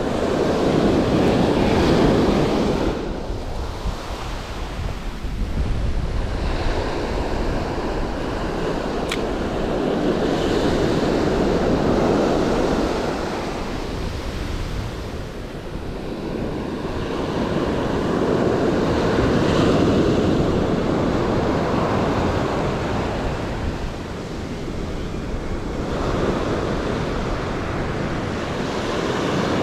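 Ocean surf breaking on the shore, the wash swelling and fading in slow waves every several seconds, with wind rumbling on the microphone.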